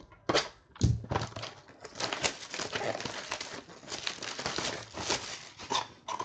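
Two knocks in the first second, then plastic shrink wrap being torn off a trading-card hobby box and crinkled in the hands, a dense crackling and tearing.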